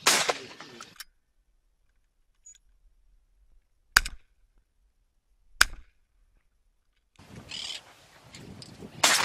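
Shotgun shots: two sharp reports about a second and a half apart in the middle, between louder noisy bursts at the start and near the end.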